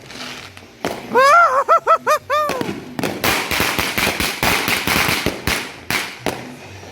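Fireworks crackling and popping in a fast, dense string from about three seconds in, lasting about three seconds. Before that, a high-pitched voice cries out several times in quick succession.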